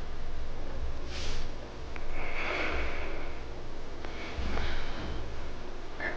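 A small kitten making short breathy sounds close to the microphone, three of them a second or two apart, one with a thin high squeak in it.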